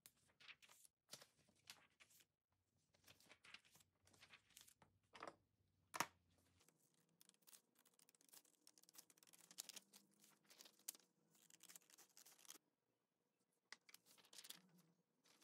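Quiet paper sounds as printed sheets are handled, with one sharp tap about six seconds in. Then comes a run of scissors cutting through paper, quick snips lasting about five seconds, and near the end more paper rustling as the sheets are handled again.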